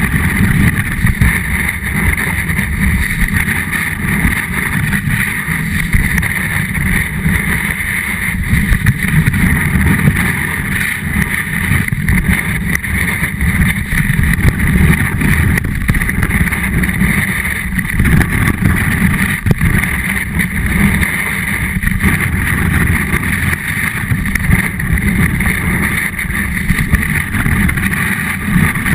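Snowboard sliding and carving over snow, heard through a camera mounted on the board: a loud, steady rumble of the board on the snow, with wind on the microphone.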